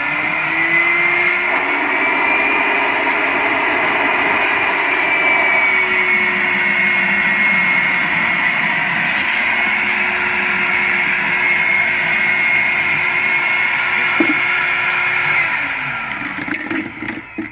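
Dastprom PP-220/15.1-1.5 industrial vacuum cleaner running at full speed with a steady high whine. About three-quarters of the way through it is switched off and winds down.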